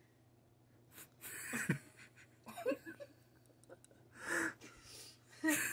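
A person's breathy, wheezing laughter in several short bursts. The loudest bursts come about four seconds in and at the end.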